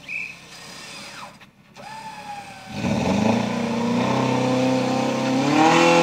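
Off-road 4x4's engine revving hard under load on a steep climb, coming in loudly about three seconds in and rising in pitch near the end. A brief high whistle-like tone sounds near the start.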